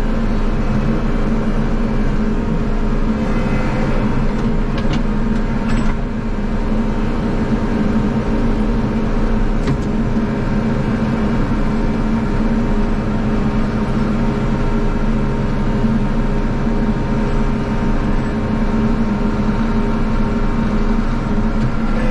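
Snowblower engine running steadily at a constant speed while the driveway is cleared of snow. A few faint clicks come about five and ten seconds in.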